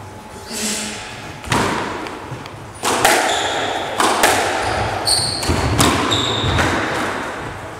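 Squash rally: a string of sharp hits of the ball off rackets and court walls about a second apart, with short squeaks of court shoes on the wooden floor in between.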